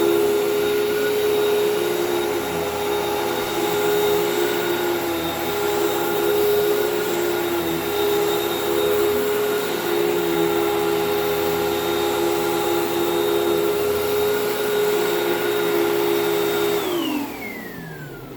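Hoover WindTunnel bagless vacuum cleaner running with a steady motor whine. Near the end it is switched off and the pitch falls as the motor spins down.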